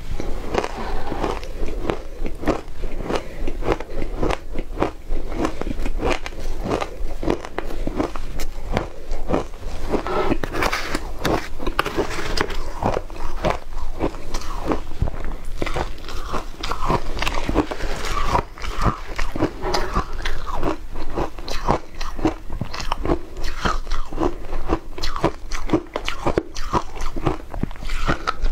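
Mouthfuls of shaved ice dusted with matcha powder being bitten and chewed, a continuous run of crisp crunching crackles.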